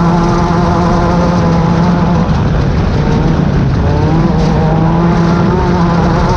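Class 10 off-road race car's engine running hard and steady under load. Its note dips a little after about two seconds and climbs back up about four seconds in.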